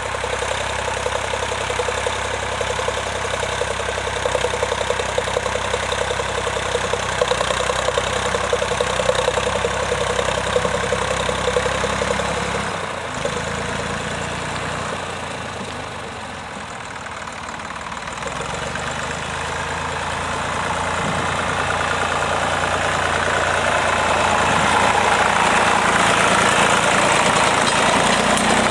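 Vintage tractor engine running steadily. It drops for a few seconds around the middle, then grows louder toward the end.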